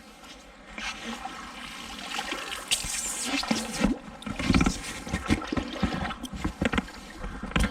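Shallow river water sloshing and splashing irregularly as someone wades through it.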